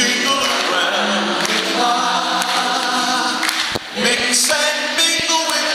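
Live rockabilly band with several voices singing together in held harmony, the voices louder than the instruments.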